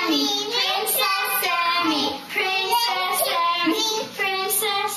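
A young girl singing in a high voice, in a run of short held notes.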